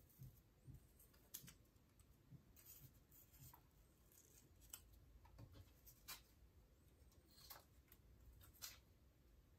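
Faint, brief, irregular rustles and light taps of cut brown-paper strips being picked up and laid down on a paper-covered tabletop, about ten in all.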